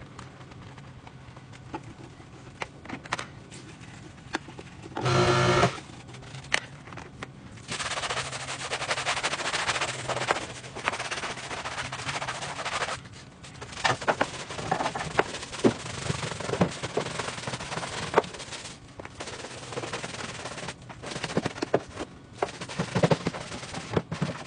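Brush and mitt scrubbing a soapy, mud-caked off-road tyre and wheel well, a rough rapid rasping in long stretches. A short, loud buzzing burst comes about five seconds in.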